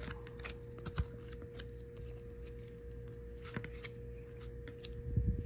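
A stack of cardboard baseball trading cards being flipped through by hand, cards slid off the pack one after another with scattered light clicks and rustles, one sharper click about a second in.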